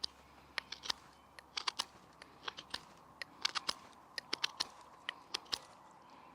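Victorinox Ranger Swiss Army knife blade whittling shavings off a wooden wedge: short, crisp cuts and clicks at an uneven pace, coming in small clusters.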